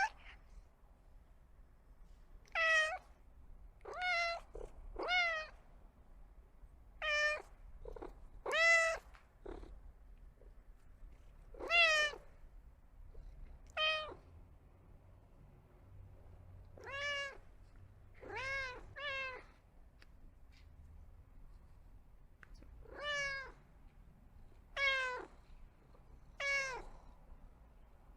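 Domestic cat meowing repeatedly: about a dozen short meows, each rising and then falling in pitch, with pauses of one to three seconds between them.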